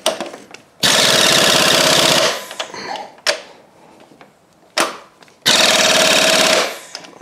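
Pneumatic impact wrench hammering in two bursts of about a second and a half each, with a couple of sharp clicks between: the bolts of a new engine mount being run down tight, to about 35 ft-lb.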